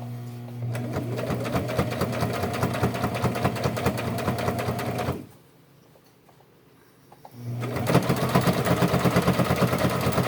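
Sewing machine stitching through a folded denim hem in two runs: the motor hums up and the needle strokes rapidly and evenly, stops about five seconds in, then starts again about two seconds later.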